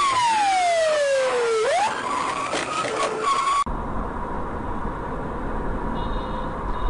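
Car tyres squealing in a skid: one long squeal sliding down in pitch, then jumping sharply up, over engine and road noise. About three and a half seconds in it cuts to a steady low road rumble.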